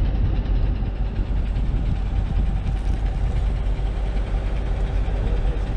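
Military vehicle engine running steadily, a deep, even sound with a constant hum over it.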